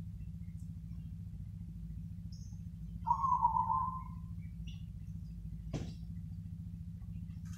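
Zebra dove (perkutut) giving one rolling, stuttering coo phrase about three seconds in, over a steady low hum. Faint high chirps of small birds come in here and there, and a single sharp click falls near the six-second mark.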